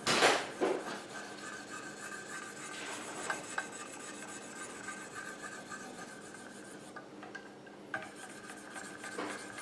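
1200-grit ceramic stones of a Wicked Edge sharpener scrubbing back and forth along the edge of a Benchmade 808 Loco blade: a quiet, even rasp of ceramic on steel, with one louder scrape at the very start. The fine ceramic stones are polishing the edge.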